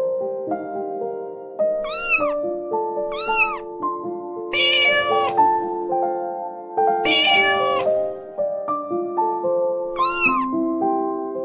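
A cat meowing five times: three short arching meows and two longer drawn-out ones, the long ones about 4.5 and 7 seconds in, over soft piano music.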